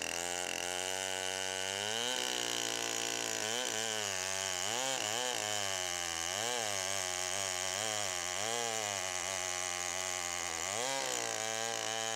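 Stihl 090 two-stroke chainsaw cutting a big birch tree, its engine note dipping and climbing back over and over as it works through the wood.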